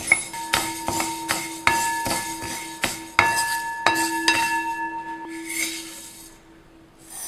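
Dry mung beans stirred in a brass uruli: the spoon knocks and scrapes against the pan a dozen or so times, and each knock leaves the pan ringing like a bell, over the rustle of the grains. The knocks thin out after about five seconds, with one more near the end.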